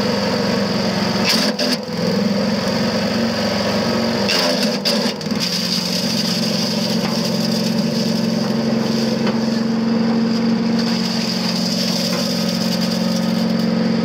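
Harbor Freight Predator 212cc (6.5 hp) single-cylinder four-stroke engine running a chipper shredder at a steady speed, a low hum with a steady high whine over it. Dry leaves are pushed into the hopper, with short crackles about one and a half and four and a half seconds in.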